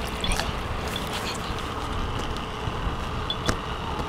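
Steady low rumble of wind on the microphone outdoors, with a few faint short knocks.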